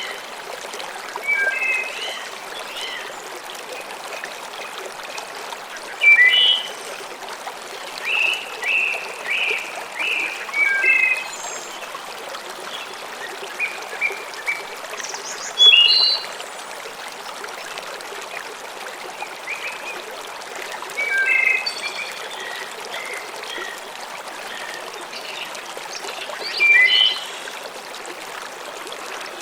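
Steady rush of a small waterfall or stream, with songbirds calling in short phrases over it every few seconds.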